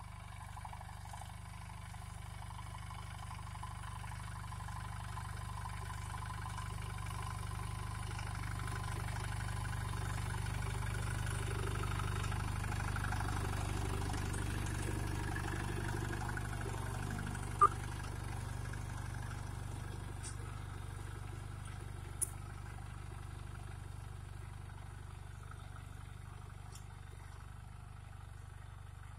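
Captain 250 DI compact tractor's two-cylinder diesel engine running steadily as it pulls a tine cultivator through dry soil, growing louder as it comes close around the middle and fading as it moves away. A single sharp knock a little past halfway, the loudest sound, and a fainter one a few seconds later.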